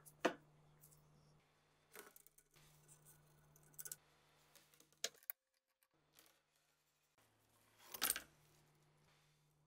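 Metal clicks and clacks of the rusty MG34 machine gun's parts being handled and taken apart: a sharp clack just after the start, scattered clicks around two and four seconds, and a longer scraping rattle near eight seconds as a part is drawn out of the receiver.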